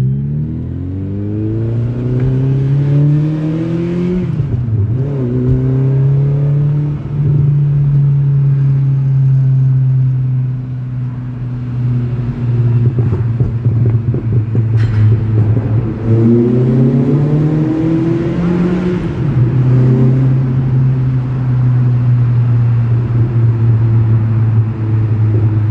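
1997 TVR Cerbera's engine pulling hard in a tunnel, which echoes the exhaust. The revs climb for the first few seconds and drop sharply at a gear change. They then hold steady, climb again about two-thirds of the way through, drop at another shift and settle into a steady run.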